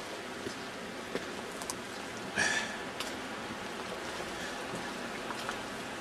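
Steady rush of a small stream running over rocks along the track, with scattered light clicks and one brief louder noise about two and a half seconds in.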